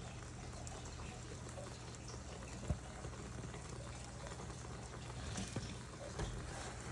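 Soft, steady sizzling and bubbling of egg omelette batter cooking in a non-stick frying pan, with scattered faint crackles over a low steady hum.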